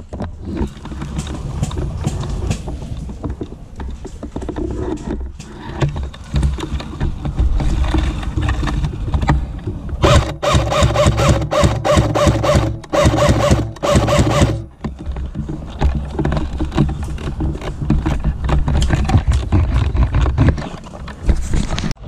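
Airsoft electric rifle firing in rapid bursts for about four and a half seconds, starting about ten seconds in, with a whirring whine under the shots. A low rumbling noise fills the rest.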